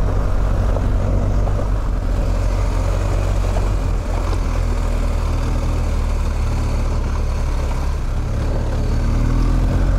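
BMW R1250 GS boxer-twin engine running steadily as the bike is ridden on a gravel dirt track, under a constant rush of wind and tyre noise; the engine note rises near the end.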